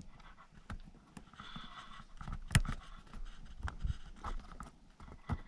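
Irregular clicks, knocks and light scrapes of car door parts being handled and pried off, with one sharp knock about two and a half seconds in.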